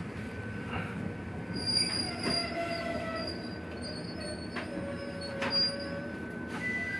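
Ichibata Electric Railway train running slowly, heard from inside the car, its steel wheels squealing in several high tones that come and go from about a second and a half in. A few sharp clicks from the wheels and rails come through the rumble.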